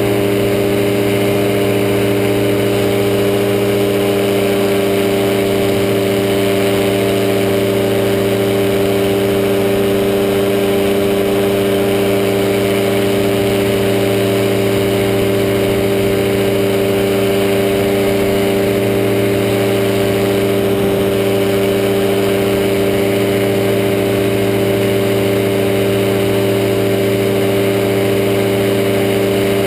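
Powered parachute's pusher engine and propeller running steadily in level flight. It holds one even pitch with no change in power.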